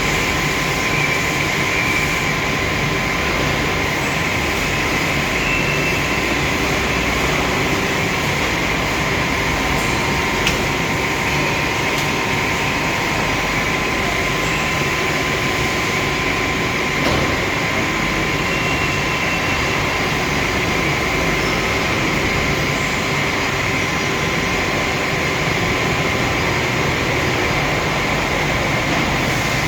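Machinery running steadily: an even, unchanging noise with a few constant whining tones and a couple of faint clicks about halfway through.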